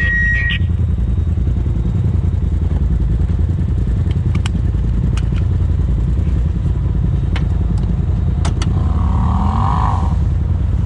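Polaris RZR side-by-sides idling while stopped, heard from in the cab: a steady low engine drone with scattered light clicks and knocks.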